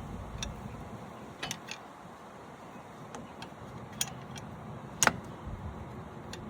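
Scattered metallic clicks and light clanks from a C-clamp being worked against a brake caliper to press the piston back in, with one sharper clack about five seconds in.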